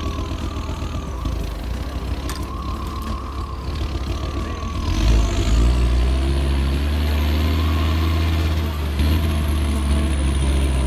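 Vehicle engine sound running at a steady idle, stepping up to a higher, louder note about five seconds in and holding there, with a faint high whine that climbs and then falls.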